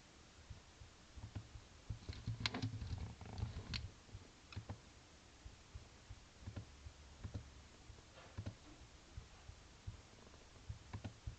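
Computer keyboard keystrokes and mouse clicks, scattered, with a denser flurry about two to four seconds in.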